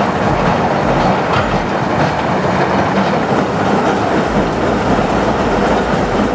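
Loud, steady mechanical noise with a rattling clatter from a heavy machine at work, cut off abruptly at the end.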